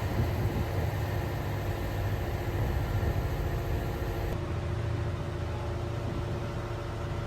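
Motor vehicle engine running at a steady speed, its tone changing abruptly about four seconds in.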